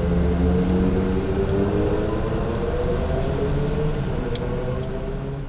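Car engine and road noise heard from inside the cabin, the engine note rising slowly as the car picks up speed. Two faint ticks come shortly after the four-second mark.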